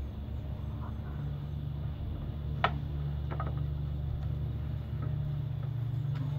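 A steady low hum, with one sharp click about two and a half seconds in and a few faint clicks just after.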